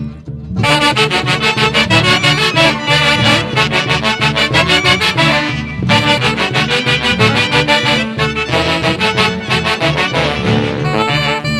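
An orquesta típica playing a lively Santiago dance tune: a wind-led melody over a steady rhythmic beat, coming in about half a second in.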